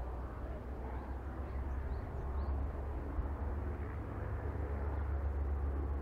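Helicopter running on the ground with its rotor turning: a steady low rumble that grows slowly louder.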